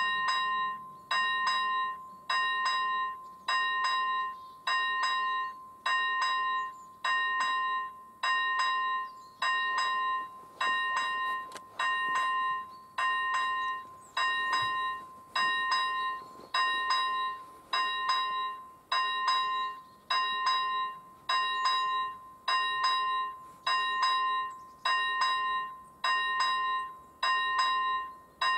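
Railway level crossing's electronic warning bell starting up and ringing steadily, about one ding a second, each stroke a clear bell-like tone that fades before the next: the crossing has been activated for an approaching train.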